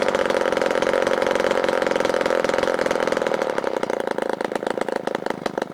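Small 1930s Stuart 29.9 cc water-cooled petrol model engine running on the bench. It runs fast and steadily, then slows in the second half, its separate firing beats becoming distinct and spreading out.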